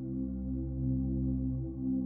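Ambient drone music: several sustained low tones held together, gently pulsing, with no beat.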